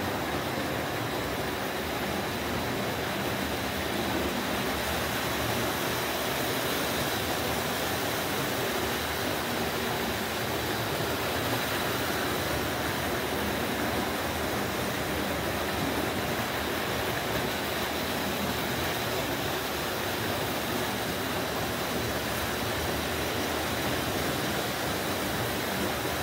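Marx O27 tinplate toy train running on its track: a steady whirring rumble of the electric locomotive and its wheels on the metal rails.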